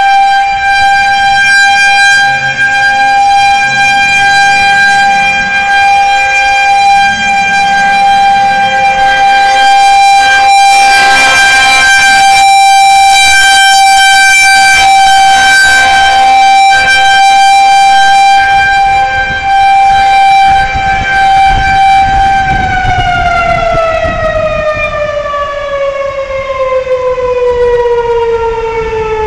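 Federal Signal 2001-130 rotating electromechanical warning siren sounding its steady single-tone alert for a tornado warning, loud and close, swelling brighter in the middle. About 22 seconds in the pitch begins sliding down as the siren winds down.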